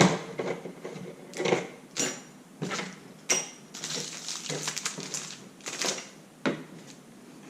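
Metal door-lock parts and hardware clicking and clinking as they are handled and set down on a surface. There are irregular knocks, a few with a short metallic ring.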